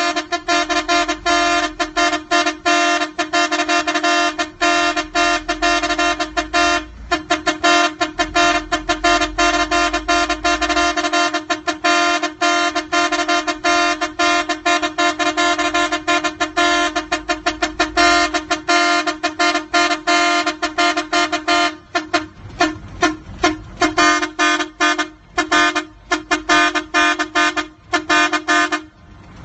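Truck horn sounding loudly at one steady pitch, repeatedly cut off and restarted in rapid stuttering toots for about twenty seconds, then in more widely spaced short toots until it stops near the end.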